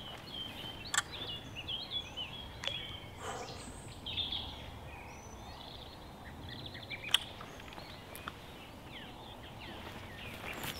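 Small birds singing and chirping in short warbling phrases over a low background hiss, with a few sharp clicks now and then.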